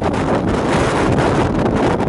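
Strong wind buffeting the microphone in a loud, steady rush with rapid gusty flutter.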